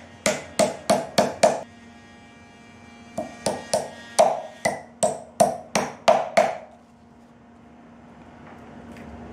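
Small hammer striking a round wooden basket base. A quick run of about five blows at roughly three a second comes first, then a pause, then a longer run of about ten blows, each with a short ring. After the hammering stops, only a low steady hum is left.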